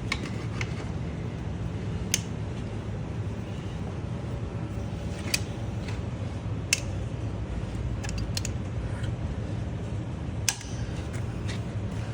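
Vice grips working a crushed, rusted-on ATV oil filter: a scattering of sharp metal clicks and snaps, about eight over the stretch, as the jaws bite and the filter can squishes. A steady low mechanical hum runs underneath.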